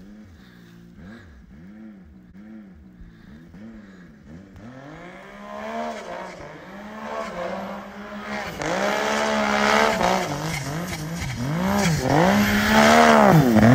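Snowmobile engine revving up and down in quick repeated blips as the sled approaches, getting steadily louder and loudest near the end.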